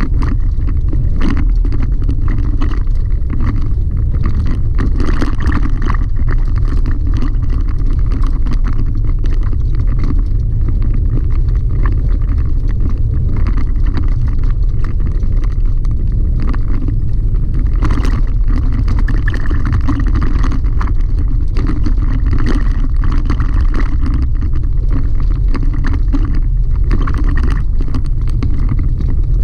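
Cabin sound of a Chevrolet Colorado ZR2 pickup driving a gravel dirt road: a steady low rumble from tyres and drivetrain, with frequent small rattles and knocks as the truck rides over the rough surface.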